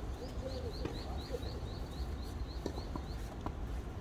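A bird calling a quick run of short, rising chirps, about four a second, over low outdoor rumble, with a few faint knocks in the second half.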